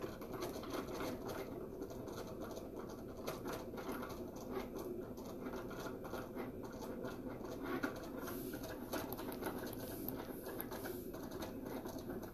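Faint, irregular light taps and scratches of fingertips on an iPad's glass screen as it is swiped and tapped, over low room hiss.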